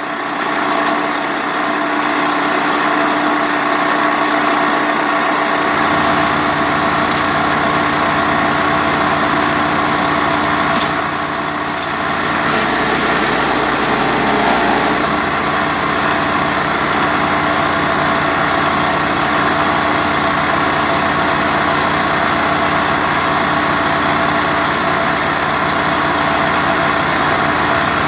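Maracó 15 HP wood chipper's petrol engine running steadily while branches are fed through and chipped, with a slight dip in level about twelve seconds in.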